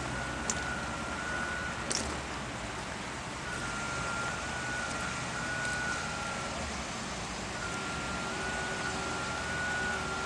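A steady high-pitched electronic warning tone sounding in stretches of about three seconds with short gaps, over a steady low machinery hum and hiss.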